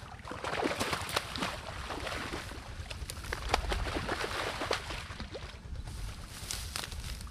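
Splashing water and crackling of dry reeds and grass at the river's edge as a set line with a hooked fish is pulled in to the bank. The rustling and splashing goes on for about five seconds, eases, then picks up again briefly near the end.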